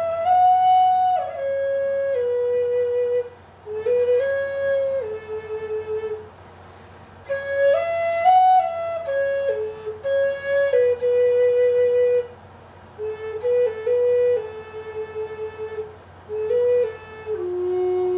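A flute playing a slow melody of held notes that step up and down, in short phrases with brief pauses between them, ending on a long low note.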